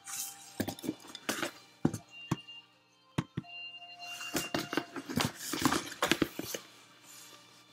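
Hands rummaging in a cardboard shipping box packed with foam packing peanuts: crackly rustling broken by scattered clicks and knocks from the box flaps and contents.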